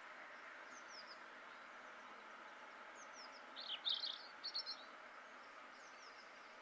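Small garden birds calling: a few faint, high, falling chirps, and a louder quick cluster of chirps about halfway through, over a steady background hiss.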